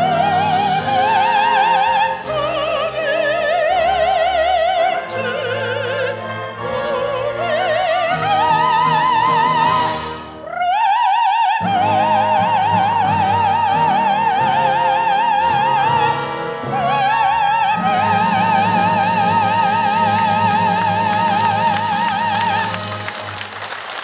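Woman's solo voice singing in classical style with wide vibrato over instrumental accompaniment, ending the song. After a breath and a rising slide about ten seconds in, she holds two long high notes, the last lasting about five seconds before the music stops near the end.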